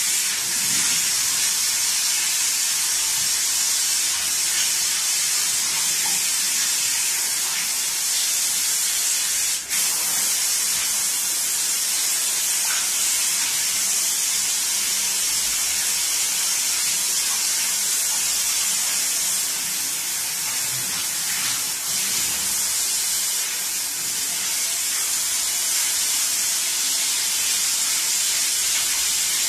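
Water hissing steadily from a hand-held hose spray nozzle onto a gum oil print in a steel sink, washing off the excess oil paint of the first layer. There is a brief break with a click about ten seconds in.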